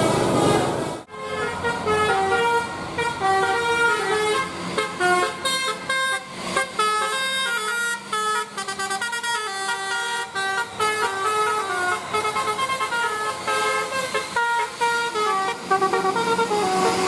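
Indonesian bus 'telolet' horn, a Basuri multi-trumpet air horn, playing a quick stepping tune of short notes sounded several pitches at once. It starts about a second in, after a short stretch of noise.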